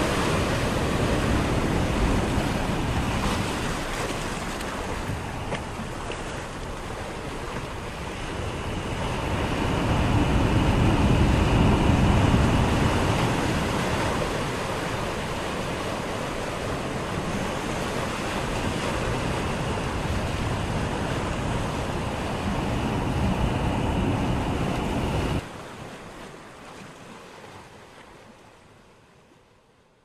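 Small sea waves breaking and washing up a sandy beach, the surf swelling and easing, with wind rumbling on the microphone. Near the end the sound drops suddenly and fades away to silence.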